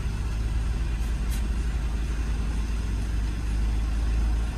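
Steady low rumble of a vehicle's engine and road noise, heard from inside the cabin while driving.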